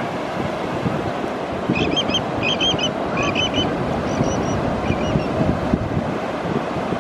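Ocean surf breaking in a steady wash. About two seconds in, a bird calls in a run of short squeaky notes that repeat a handful of times and fade out.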